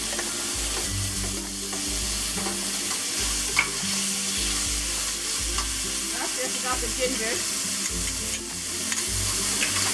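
Marinated chicken chunks sizzling in a smoking-hot oiled pan, with a spatula scraping and tapping on the pan as the pieces are stirred. One sharper knock about three and a half seconds in.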